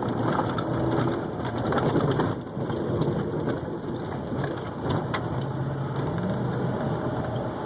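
2013 Ford Raptor's V8 engine running as the truck drives over rough off-road terrain, heard from inside the cab, with a few sharp knocks from the body and suspension; the engine pitch rises briefly near the end.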